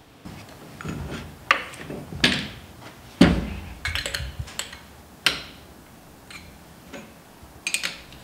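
Metal knocks and clanks as a copper pipe is handled and fitted into a stand-mounted pipe bender and its lever arm is moved: a string of separate sharp knocks, the loudest about three seconds in, with a cluster of light clicks near the end.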